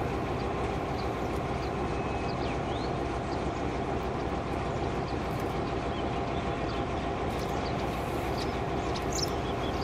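A vintage DF class diesel locomotive idling steadily while standing, a constant low rumble with a faint steady hum over it.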